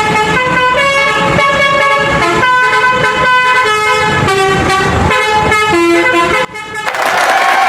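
Bus telolet horn, a set of multi-tone air horns, playing a quick tune of stepped, chord-like notes. It breaks off briefly about six and a half seconds in, then sounds again.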